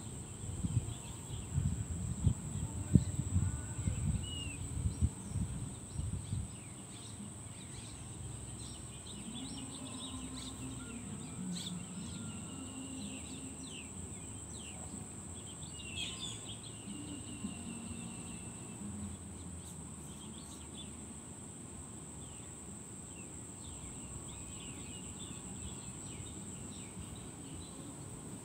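Outdoor ambience with insects making a steady high drone and birds chirping now and then. Low thumps and rumbles in the first six seconds are the loudest sounds.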